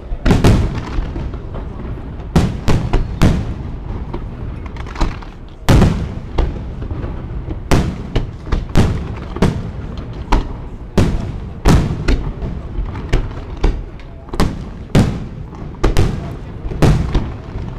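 Aerial firework shells bursting in quick succession, a sharp boom about every second, each trailing off in an echo, over a steady rumble and crackle.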